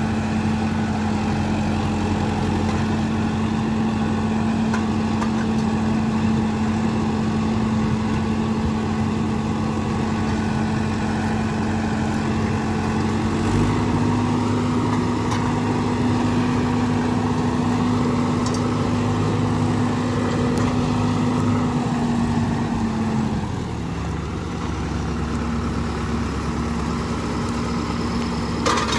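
Diesel tractor engine running steadily under load while pulling a plough through soil. Its note steps up slightly about halfway through and settles lower a few seconds before the end.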